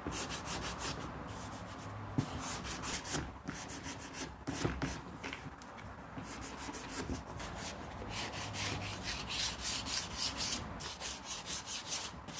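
Sandpaper being rubbed by hand over a truck body panel, in quick back-and-forth strokes with a few short pauses. A freshly dried repair is being sanded down before primer.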